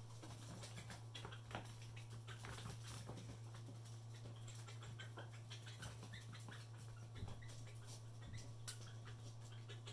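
Faint scattered ticks and short squeaks of young kusimanse (cusimanse mongoose) pups at play, over a steady low hum.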